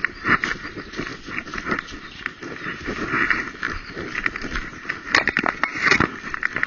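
Quick patter of running footfalls through dry leaf litter on a forest floor, with a body-worn camera jostling and knocking against its mount; a couple of harder knocks come about five and six seconds in.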